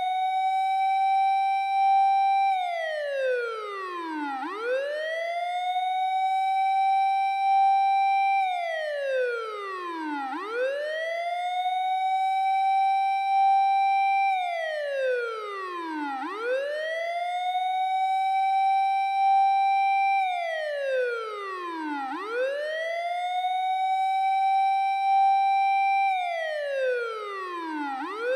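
Japanese fire engine wailing siren, produced by a siren app: the tone rises to a high steady pitch, holds for about two seconds, then glides down and swoops back up, repeating about every six seconds.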